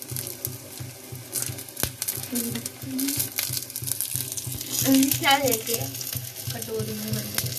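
Peanuts roasting in an iron kadhai, stirred and scraped with a metal slotted spoon: a steady sizzling hiss with scraping and rattling of the nuts against the pan.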